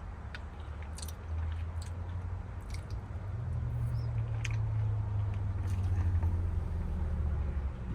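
A person chewing and eating chicken noodle soup, with scattered small clicks, over a low steady hum that gets louder about halfway through.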